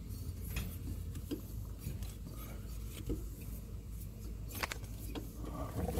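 Faint scrapes and light clicks of a hand working around a lawn tractor's drive belt and metal transaxle pulley, with a few sharper clicks near the end, over a low steady hum.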